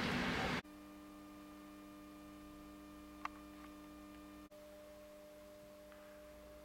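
A departing train's rail noise stops abruptly after about half a second. What follows is a faint, steady electrical hum, with one small click about three seconds in.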